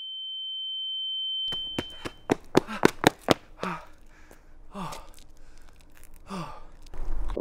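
A high steady ringing tone swells and cuts off abruptly about two seconds in. Several sharp clicks follow, then a man's heavy gasping breaths and groans, each falling in pitch.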